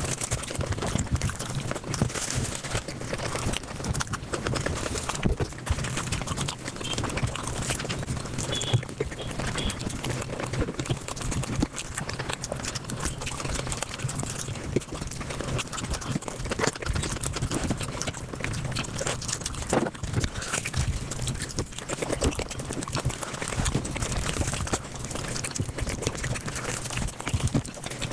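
Eating sounds sped up about five times: chewing, smacking and biting run together into a dense, rapid patter of wet clicks.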